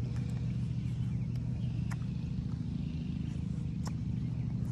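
A steady low mechanical hum, with a couple of faint sharp clicks about two and four seconds in.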